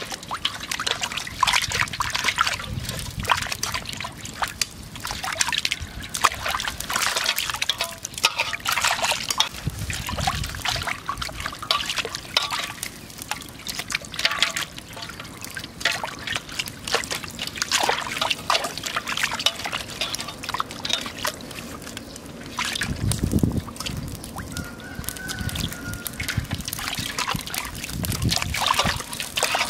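Water sloshing, splashing and trickling in a metal basin as hands scrub and rinse a raw pig's head, in irregular strokes.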